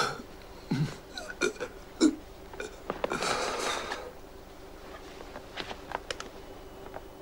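A badly wounded man struggling to speak: a few short, strained, gurgling grunts and gasps in the first two seconds, then a breathy exhale lasting about a second.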